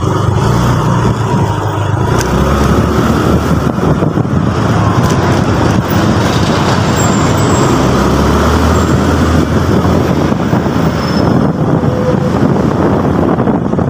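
SYM K-Blade 125 motorcycle on the move in city traffic: steady engine and road noise mixed with wind rushing past.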